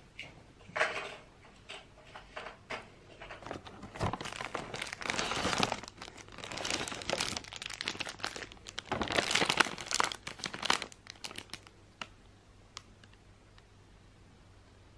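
Clear cellophane wrapping on gift bottles crinkling in irregular bursts as they are handled in a paper gift bag. It is loudest in the middle and fades to a few faint ticks near the end.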